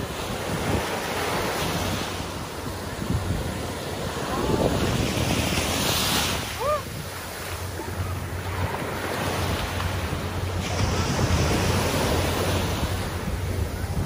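Small Gulf surf breaking and washing up over the sand at the water's edge, a continuous hiss that swells louder about five seconds in. Wind buffets the microphone, adding a low rumble.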